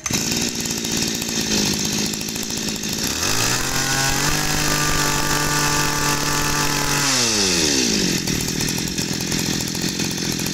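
Komatsu Zenoah BC2300 brush cutter's 23 cc two-stroke engine running at idle, revved up about three seconds in, held at high speed for about three seconds, then let back down to idle.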